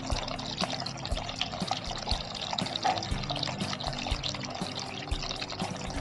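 Water trickling and splashing in many small drops, over background music with held low notes.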